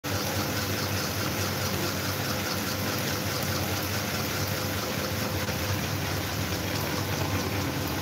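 Several electric fans, a pedestal fan and desk fans, running together: a steady rush of moving air over a low motor hum.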